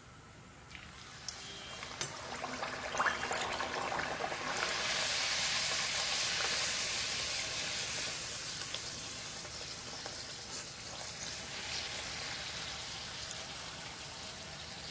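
Ragi (finger millet) pooris deep-frying in hot oil on high flame, sizzling. The sizzle builds a couple of seconds in, is loudest around the middle and slowly eases, with a few light clicks near the start.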